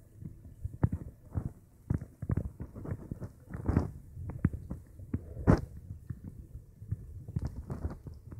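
Irregular light knocks and taps, several a second, with two louder knocks about midway.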